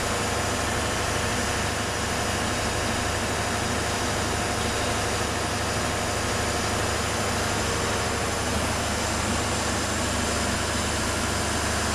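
Large MTU V20 diesel engine running steadily at constant speed: an even, loud engine-room drone with a deep low hum and a dense hiss over it.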